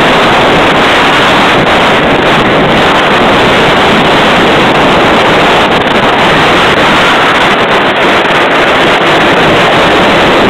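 Loud, steady wind noise and rumble on a rider's camera aboard a Rebel Yell wooden roller coaster train running over its final stretch of track.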